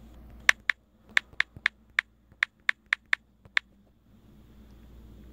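Phone on-screen keyboard clicking as a word is typed: about eleven quick, sharp key-press clicks over some three seconds, then only a faint low hum.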